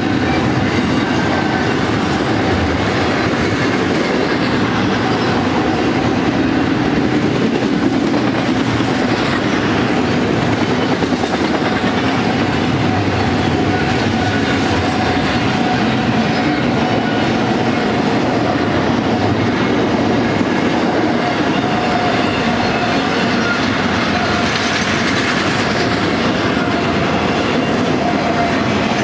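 Double-stack intermodal train's container-laden well cars rolling past: the steady noise of steel wheels running on the rails, with a faint steady whine under it.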